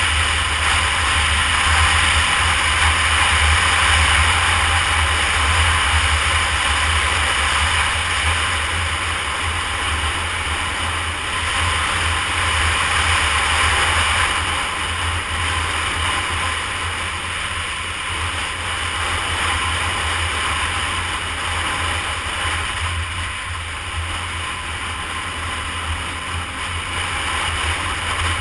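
Wind rushing and buffeting over the microphone on a moving 2013 Honda CBR250R, with the bike's single-cylinder engine running steadily underneath at cruising speed.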